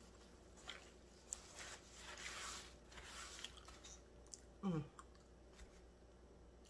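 Faint mouth sounds of a person chewing a mouthful of steak and cheese sub, with scattered small wet clicks and soft smacks. About two-thirds of the way through comes one short hum that falls in pitch.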